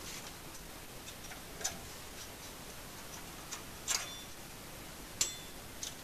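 Steel exhaust springs and a spring puller clinking against the exhaust pipe as the springs are hooked on at the muffler joint: four short, sharp metallic clicks, a couple ringing briefly, the loudest about five seconds in.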